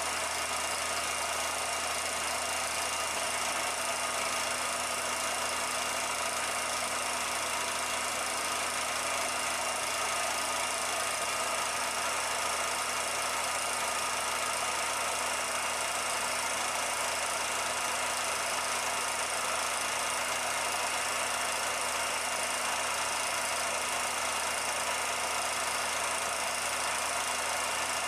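A steady, unchanging machine-like hum and hiss, with several fixed tones in it, like a motor running.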